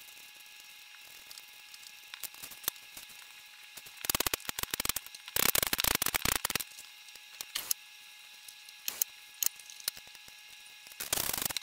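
Potato peeled, then cut into pieces with a knife on a wooden chopping board: faint scraping at first, then two quick runs of knife knocks on the board about four seconds in, a few single knocks after, and another quick run near the end.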